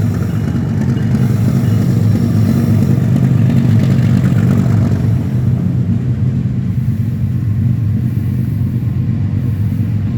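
Diesel locomotives of a freight train running with a steady low rumble as the empty train pulls away, swelling a little a few seconds in.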